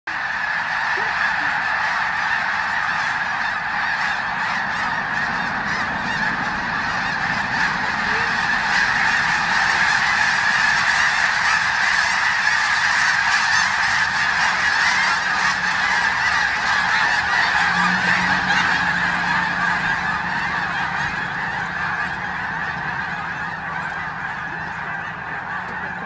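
A large flock of snow geese taking off, a dense mass of honking calls from hundreds of birds blending into one continuous din. It stays loud throughout and fades slightly in the last few seconds as the flock moves off.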